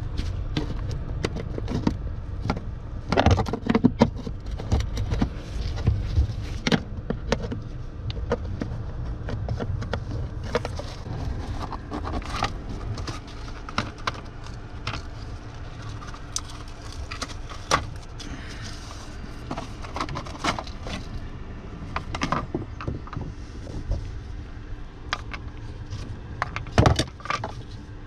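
Metal hand tools, a pry tool and screwdrivers, clicking, knocking and scraping on a Mercedes W126's bare floor pan as trim and debris are worked loose. The knocks come irregularly, over a steady low rumble.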